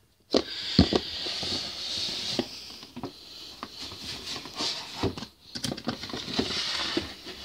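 Rustling with scattered clicks and knocks, the noise of enclosures or tubs being handled, with a sharper knock about a second in.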